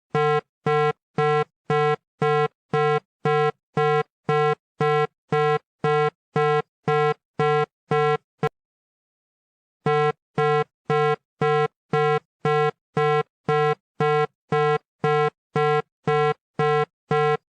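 Synthesized emergency-alert warning tone: a buzzy electronic beep repeating about twice a second. It stops for about a second and a half a little past halfway, then starts again at the same rate.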